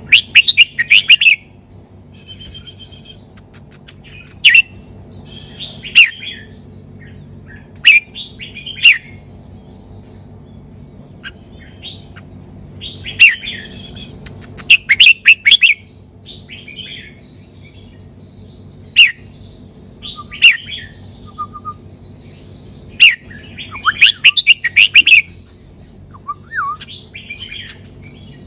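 Red-whiskered bulbul singing: short, bright, warbling phrases come every couple of seconds, several run together in quick bursts around the middle and again near the end.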